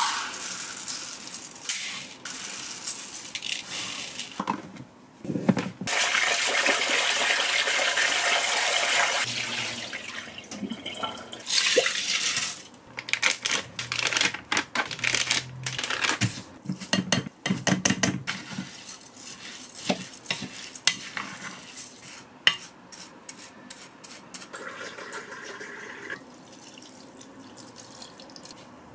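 Rice being prepared in a cooker's inner pot: a steady rush of running water lasting a few seconds, then grains of konjac rice pouring and rattling into the pot with scattered clinks of the pot and utensils, and water poured in from a glass measuring cup.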